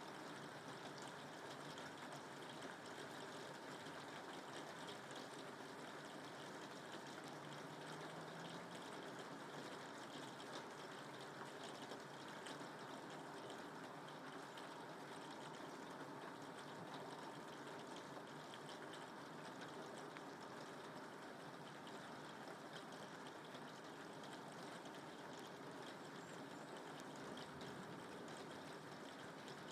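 Steady rain falling, a constant even hiss dotted with fine drop ticks, with no thunderclap.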